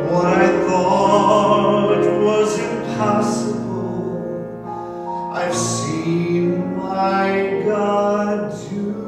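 A man singing a slow solo song in held notes, accompanying himself on a grand piano.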